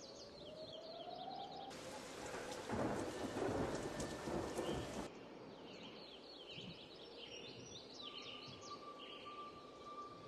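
A burst of rumbling, hissing noise like thunder and rain. It starts abruptly about two seconds in and cuts off abruptly about three seconds later, over a background of repeated short chirps and a steady high whistle.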